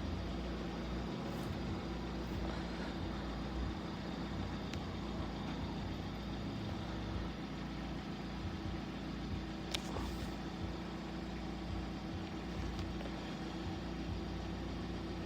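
A steady mechanical hum with no change in pitch, and a single sharp click about ten seconds in.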